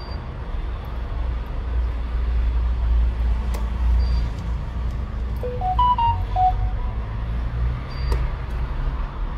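Steady low background rumble with a few faint clicks, and a brief run of short stepped tones about six seconds in.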